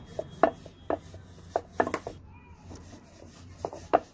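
Wooden rolling pin rolling a ball of dough flat on a round wooden board (belan and chakla), a soft rubbing broken by irregular sharp wooden clacks as pin and board knock together, some of them loud.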